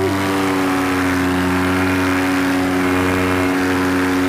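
Paramotor's two-stroke engine held at steady high power during the takeoff run and lift-off, with a constant pitch.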